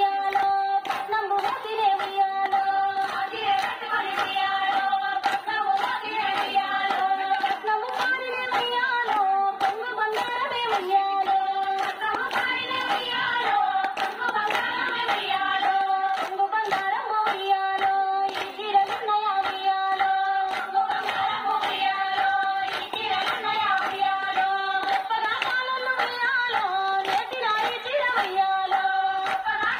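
A Telugu Bathukamma folk song with women's singing in long held, repeating phrases, carried by the dancers' steady rhythmic hand clapping.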